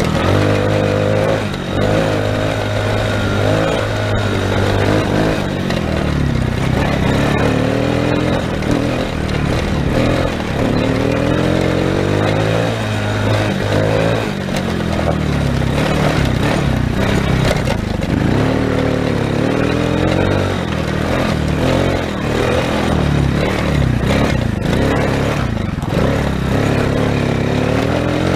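Small engine of a children's ATV running under load, its pitch rising and falling again and again as the throttle is opened and eased off over a rough trail.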